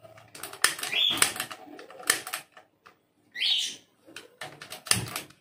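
Handheld piezo gas lighter clicking again and again as it sparks at a gas stove burner. A pet parrot squawks briefly twice, about a second in and again past the middle.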